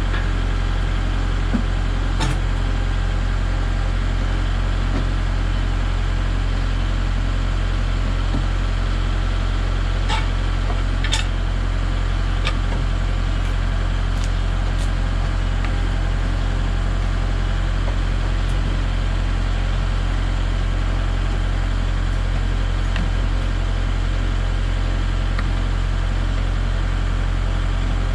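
An engine idling steadily, with a few light clicks and knocks over it.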